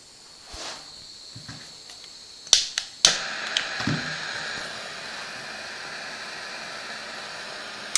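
Gas torch on a brass case annealing machine being lit: two sharp clicks about two and a half and three seconds in, then the steady hiss of the burning flame.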